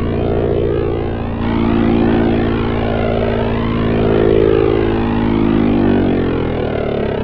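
Raspy synthesizer drone from a modular patch of LV2 plugins, passed through a rotary-speaker effect and hall reverb: a dense stack of steady low tones whose upper overtones slowly swell and fade.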